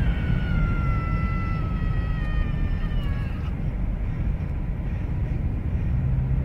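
Steady road and engine rumble heard inside a moving vehicle's cabin, with a faint high whine that slowly falls in pitch over the first few seconds and fades out.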